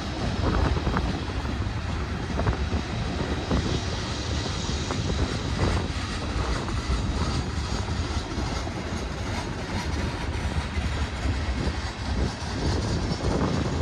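Union Pacific manifest freight train rolling past: a steady deep rumble of wheels on rail, with scattered short knocks and clanks.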